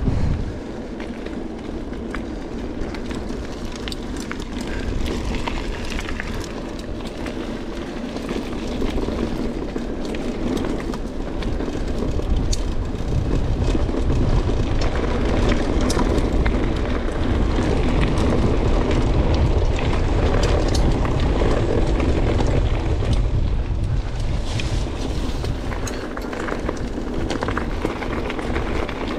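Mountain bike riding fast, first on a tarmac lane and then on a gravel byway: a steady rumble of tyres on the surface, with frequent clicks and rattles from stones and the bike, and wind buffeting the camera microphone. It is loudest through the middle stretch.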